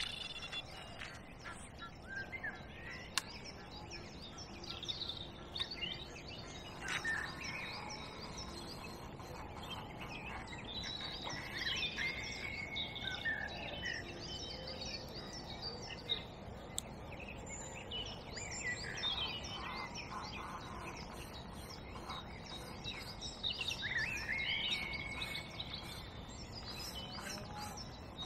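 Several birds singing and calling around a lake, many short chirps and whistles overlapping, over a faint steady outdoor background.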